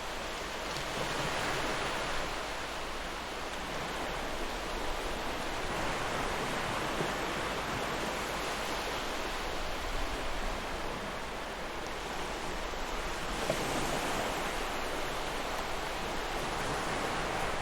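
Gentle ocean waves washing ashore: a steady rush of surf that swells and eases every few seconds.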